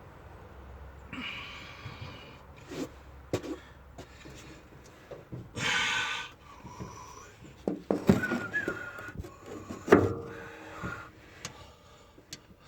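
Wrench and socket clinking and knocking against the engine while a hard-to-reach cylinder head bolt is worked on, with a breathy, hiss-like exhale about halfway through. Two sharp knocks come later, the second the loudest.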